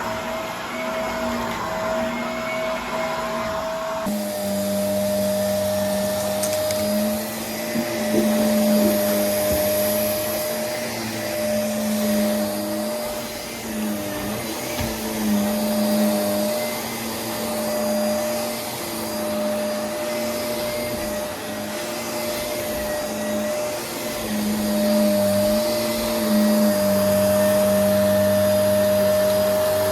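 Vacuum cleaner motor running steadily with a droning hum whose pitch dips and recovers slightly as the load changes. The sound changes abruptly about four seconds in.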